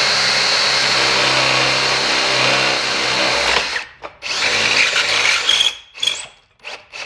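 Cordless drill driving a Star-M 6012 stepped raceway drill bit through a metal duct channel, running steadily with a high motor whine for nearly four seconds. It stops briefly, runs again for about a second and a half, then gives a few short bursts near the end as the 12 mm step finishes the hole.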